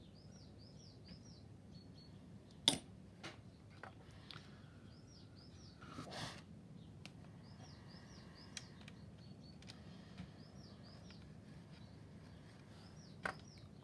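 Faint bird chirping, short arched notes repeated in little runs of three or four. A few sharp clicks of small parts being handled cut across it, the loudest about two and a half seconds in and another near the end, with a brief rustle around six seconds.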